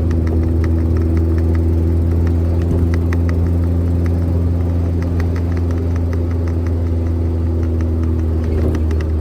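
1973 Volkswagen Karmann Ghia's air-cooled flat-four engine running steadily at low revs, with a light, regular ticking over the hum.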